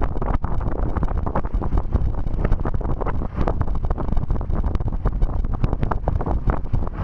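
Strong wind buffeting the microphone on a sailing canoe under way: a loud low rumble that gusts up and down, with choppy water rushing along the hull.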